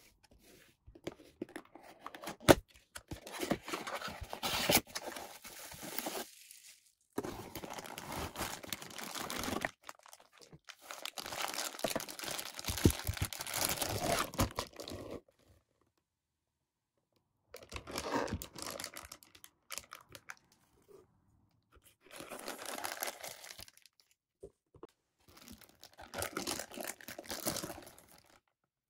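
Thin clear plastic bag crinkling and rustling as it is handled and pulled open, in several bursts with short silent gaps between them. There are a couple of sharp clicks from the cardboard box a few seconds in.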